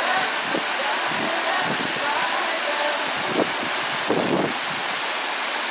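Steady outdoor rushing noise with faint distant voices, and a couple of brief louder calls about three and a half and four seconds in.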